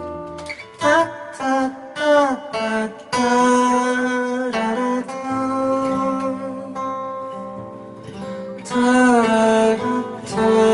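A man singing to his own acoustic guitar. The guitar plays alone at first, and the voice comes in about a second in.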